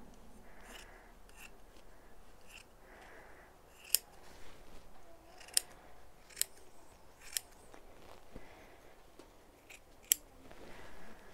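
A sheep's-wool mulch mat being handled and cut for planting holes: soft rustling broken by five sharp snips over the middle and latter part.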